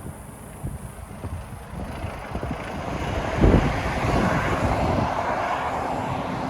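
A road vehicle passing, its rumble and road noise growing to a peak a little past halfway and then holding, with wind buffeting the microphone.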